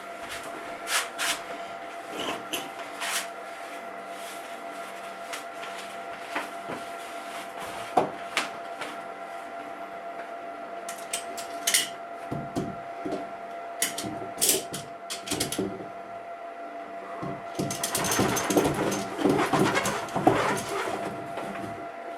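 Ratchet straps being cranked: sharp clicks and knocks come at scattered moments, then a dense run of rapid ratcheting clicks and rattling a few seconds before the end.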